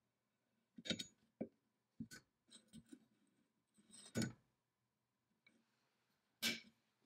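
Brass and aluminum parts of an antique centrifugal dental casting machine clicking and knocking together as they are fitted by hand: about half a dozen short taps, the loudest about a second in, about four seconds in and near the end.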